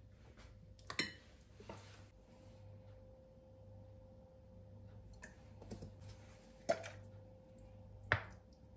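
A handful of short, sharp clicks and knocks of a metal spoon and glass bottles against a glass mixing bowl, the loudest near the end, over a faint steady hum.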